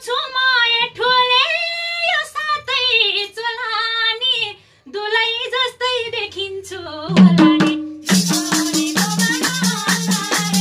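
A woman sings a Nepali dohori folk verse unaccompanied. About seven seconds in a madal drum comes in, and a second later tambourine jingles and handclaps join in a steady rhythm under the singing.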